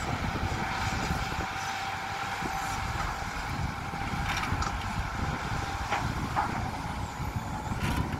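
Diesel engines of a loaded SHACMAN dump truck pulling away and a SANY SY215C excavator running, heard together as a steady low rumble with a steady high whine over it.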